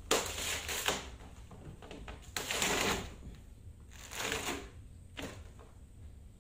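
A cured fiberglass laminate being peeled and prised off its mould, in four short noisy bursts of a second or less.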